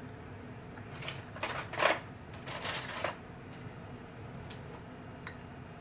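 Cutlery scraping and clinking against a plate in a few short bursts from about a second in, the loudest near the two-second mark, over a steady low room hum.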